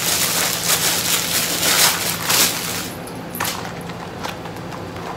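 Clear plastic packaging crinkling and rustling as it is handled and pulled open, dense for about three seconds, then a few fainter crackles.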